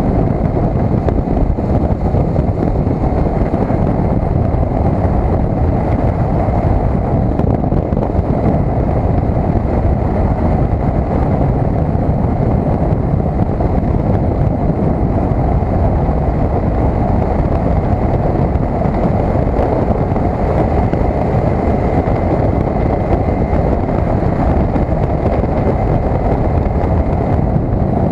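Steady wind noise blasting the built-in microphone of a cheap helmet-mounted action camera, riding a 2012 KTM 990 SMT motorcycle at road speed, with the bike running underneath.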